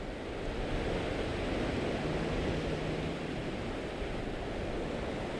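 Steady wash of ocean surf breaking on rocks.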